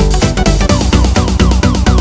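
Background electronic dance music with a fast, steady beat and heavy bass.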